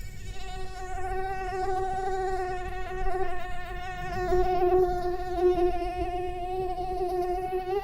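Mosquito buzzing in flight: a steady, high, thin whine from its rapidly beating wings, wavering slightly in pitch. It swells and fades as it is panned around the listener in 8D audio.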